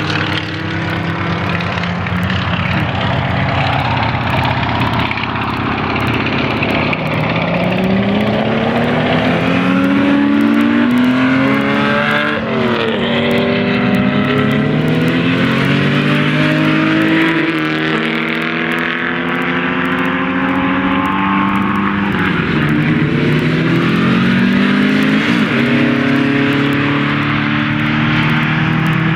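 Racing car engines accelerating hard and shifting through the gears, their pitch climbing and dropping back at each shift, several cars heard at once. One car passes close about halfway through.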